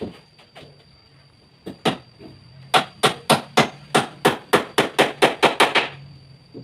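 Hammering: a few single knocks, then a quick even run of about a dozen blows, roughly four a second, stopping about a second before the end.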